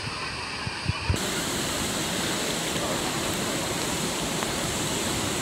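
Steady rushing of the Krka waterfalls. About a second in, after a couple of dull knocks, the rush turns suddenly fuller and brighter and holds steady.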